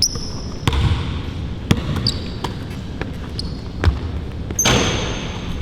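A basketball bouncing on a hard court in uneven dribbles, with sneakers squeaking in short, high chirps as players cut and move. A short rush of noise comes near the end.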